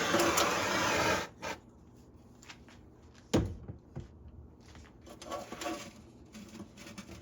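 A steady, loud hiss from the heat source being played on the assembly cuts off suddenly about a second in. Light clicks and knocks of parts being handled follow, with one sharp click a little past the middle.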